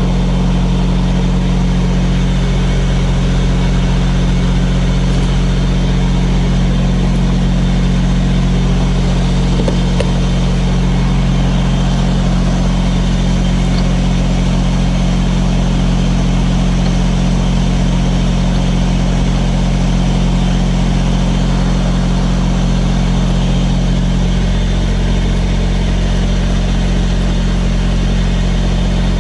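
Semi truck diesel engine idling with a steady low hum, unchanging apart from a slight shift in the hum about five seconds before the end.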